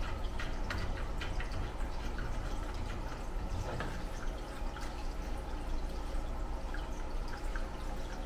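Scattered faint clicks and ticks of a speaker's screw terminals being turned by hand to clamp speaker wire, over a steady low hum.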